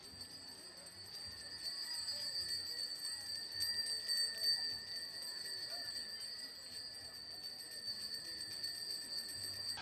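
A small bell ringing on and on in a high, steady ring that grows louder over the first two seconds.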